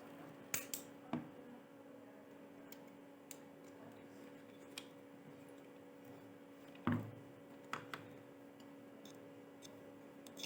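A few scattered sharp clicks and light knocks of small objects being handled, the loudest about seven seconds in, over a faint steady hum.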